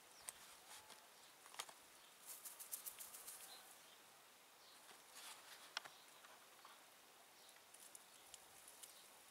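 Near silence: faint outdoor ambience with scattered small clicks and light rustling, the sharpest tick a little before the middle.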